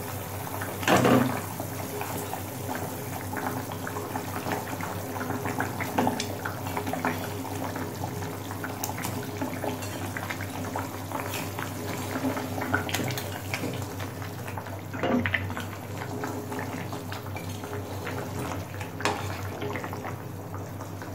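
Thin curry gravy bubbling at a hard boil in a metal kadai, with a few louder splashes as kofta balls are dropped in one at a time, the biggest about a second in. Near the end a spatula stirs through the gravy.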